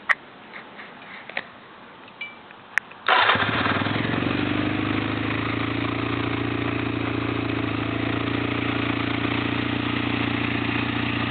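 1997 Kawasaki 600 Eliminator's liquid-cooled inline-four engine: a few small clicks, then it starts about three seconds in and settles into a steady idle.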